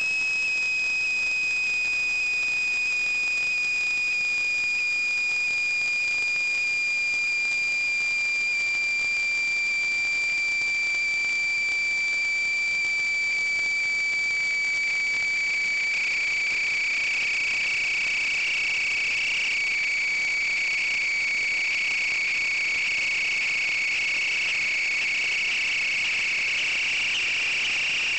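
A steady high-pitched electronic whine with fainter overtones above it, sinking very slightly in pitch, picked up by the sewer inspection camera system's audio. From a little past halfway, a rough fluttering edge joins the whine.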